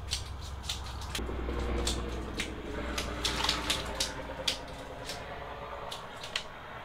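Scattered light clicks and handling noise as a small panfish is unhooked by hand, over a low steady hum that stops about six seconds in.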